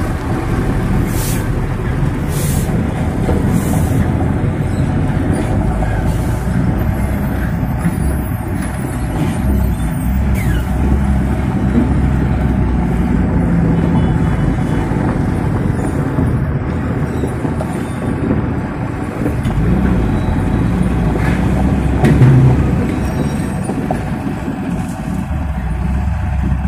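Heavy diesel trucks running and moving close by, a steady low engine rumble. There are three short air-brake hisses in the first few seconds, and the rumble swells briefly about 22 seconds in.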